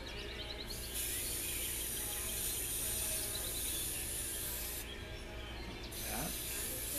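Aerosol spray paint can spraying: a long hiss of about four seconds, then a second hiss starting about a second later, as paint lines are sprayed onto canvas.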